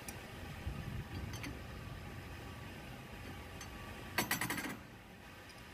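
Faint metal clicks from a homemade steel hinge-bending jig clamped in a bench vise as it is worked by hand, then a short rattling clatter of steel parts about four seconds in.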